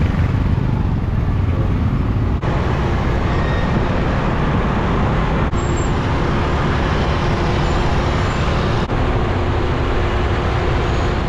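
Loud, steady traffic noise heard from a vehicle moving through city traffic: the rumble of motorbike and car engines and tyres on the road.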